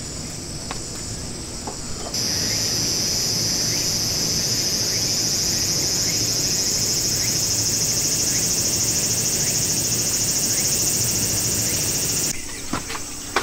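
Loud, steady, high-pitched insect chorus that starts abruptly about two seconds in and cuts off shortly before the end.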